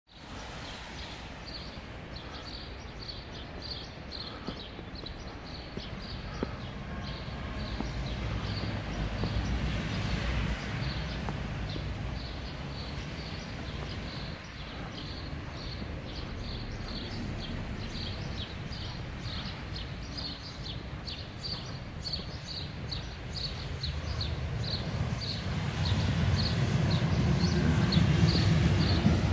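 Footsteps of a person walking at about two steps a second, over a low rumble of street traffic that grows louder near the end.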